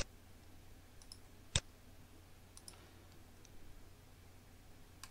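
Computer mouse clicking: two sharp clicks, one right at the start and one about a second and a half in, with a fainter click near the end, over a faint low hum.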